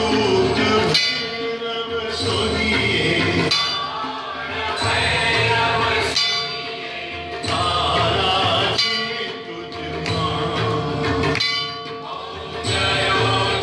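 Group singing of a devotional aarti hymn, with a metal bell struck about every two and a half seconds and ringing on between strikes.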